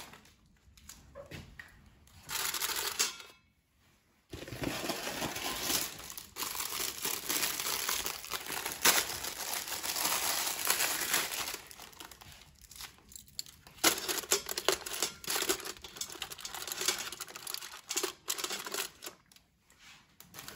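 Thin plastic wrappers crinkling and rustling as frozen sliders are pulled out of them by hand. The rustle comes in irregular spells, with a brief silent gap about three seconds in.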